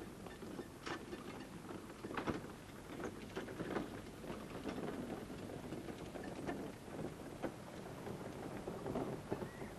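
A horse-drawn two-wheeled cart moving along a dirt road: irregular hoof knocks mixed with the rattle of the cart.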